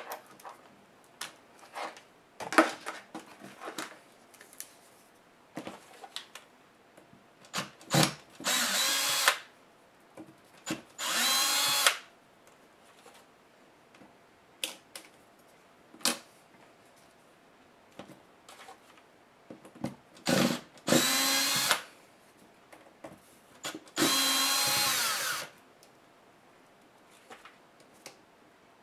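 Electric screwdriver running in four short bursts of about a second each, backing out screws. Small clicks and taps of parts being handled fall between the bursts.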